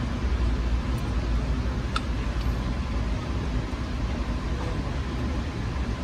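Steady low rumble of background noise, with a faint tick about two seconds in.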